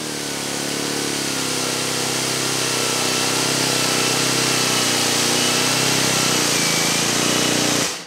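Dyson V11 Outsize cordless stick vacuum running on carpet: a steady rush of air with a high motor whine above it.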